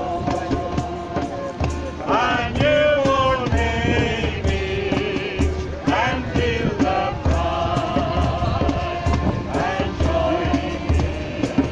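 Voices singing a hymn over instrumental backing with a steady low beat.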